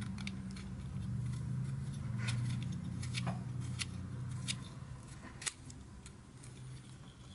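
Faint clicks and ticks of a metal threaded mount being screwed by hand onto a ring light, about one a second, over a low steady hum that fades out about halfway through.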